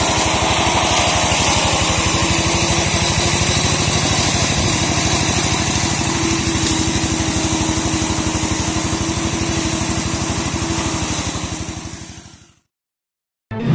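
Walk-behind brush mower's small engine running steadily with an even, fast pulse. It fades out about two seconds before the end, and after a brief silence music begins right at the end.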